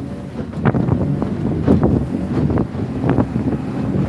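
Small outboard motor on an open fishing boat running steadily under way, with wind buffeting the microphone and frequent short splashes of water against the hull.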